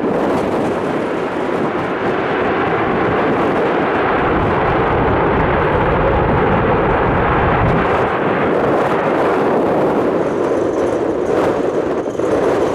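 Jet airliner engines rumbling steadily, mixed with gusty wind on the microphone. A deeper rumble swells about halfway through.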